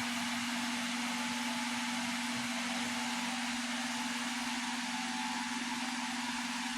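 Electric fan running steadily: an even rush of air with a constant low motor hum.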